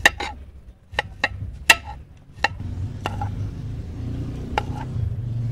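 A cleaver chopping onion and garlic on a plate: about nine sharp, irregularly spaced knocks of the blade striking the plate. A low steady rumble sits underneath, stronger in the second half.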